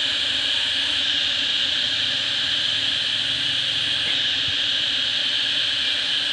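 Steady high-pitched drone of a forest insect chorus, unbroken and even.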